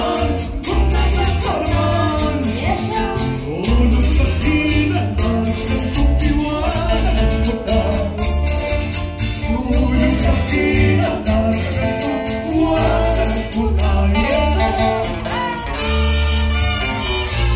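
Latin American folk dance music with a singing voice, guitar and fiddle over a steady bass beat, played loud.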